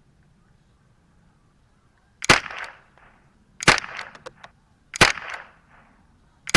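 .22 LR semi-automatic Ruger 10/22 Sporter rifle firing four shots about a second and a half apart. The first comes about two seconds in and the last right at the end, and each crack trails off in a short echo with a few small clicks after it.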